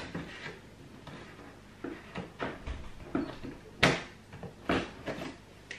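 Scissors cutting the packing tape on a large cardboard delivery box and the box flaps being worked open: a series of short scrapes and rustles of cardboard, the sharpest about four seconds in.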